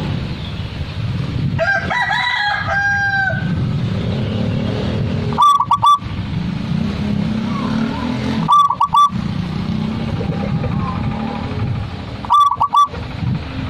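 Caged zebra dove (perkutut) cooing: three short phrases of quick, clipped coos, spaced three to four seconds apart. About two seconds in, another bird gives a longer, higher call that ends on a held note.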